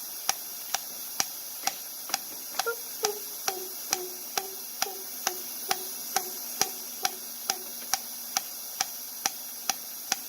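Hand hammer tapping steel at an anvil in an even rhythm, about two sharp metallic strikes a second, with a faint ring after each strike in the middle of the run.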